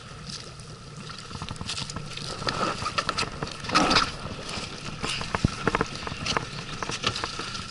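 Knocks, scuffs and rustling as a person climbs into an inflatable PVC boat at the water's edge, with a louder scrape about four seconds in. A faint steady hum runs underneath.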